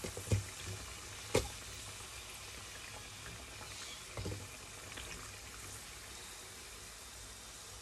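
Oil sizzling steadily as glutinous-rice-flour fritters (badoya) deep-fry in a pan. A few sharp clicks of the turning utensil against the pan come, two close together in the first second and a half and a softer one about four seconds in.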